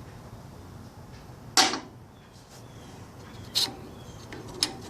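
Three sharp knocks as the 6HP19 transmission's E clutch drum and piston are handled during the teardown. The first, about a second and a half in, is the loudest and rings briefly.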